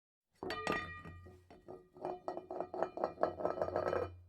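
Short burst of music: a quick run of struck or plucked notes over a low hum, starting and stopping abruptly out of silence.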